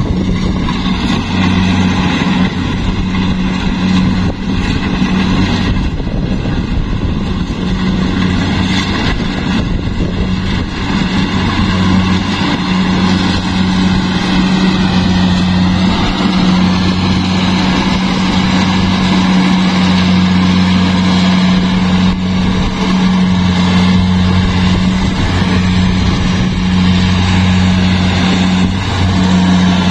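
Rice combine harvester running steadily: a low engine drone with higher whining tones from the machinery, which dip briefly about halfway through.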